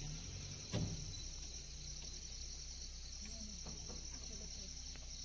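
Steady high drone of a chorus of forest insects such as crickets or cicadas, with a single sharp knock a little under a second in.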